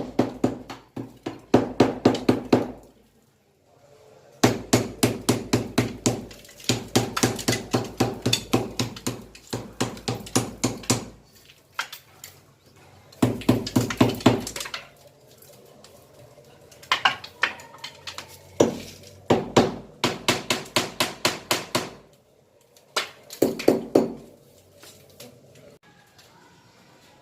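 Hammer striking repeatedly in fast runs of blows, several a second, with short pauses between runs.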